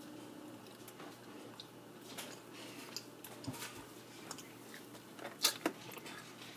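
Quiet room tone broken by a few light clicks and knocks, as of small objects being handled, with two sharper clicks close together about five and a half seconds in.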